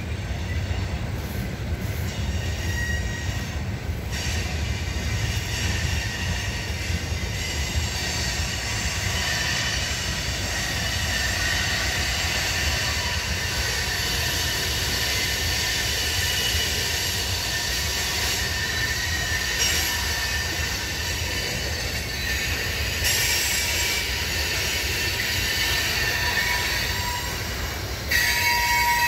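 CSX freight train of tank cars rolling past, with a steady low rumble of wheels on rail. From about four seconds in, high steady wheel squeal rings over the rumble, and the sound grows louder near the end.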